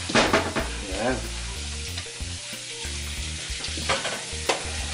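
Wooden spatula stirring and scraping mashed potatoes with butter and cream around a hot nonstick wok, with a few sharp scrapes over a steady sizzle.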